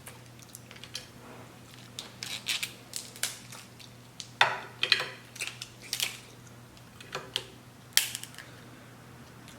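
Dungeness crab shell being cracked and pulled apart by hand: irregular snaps, cracks and crunches, the loudest cluster about halfway through and a sharp crack near the end.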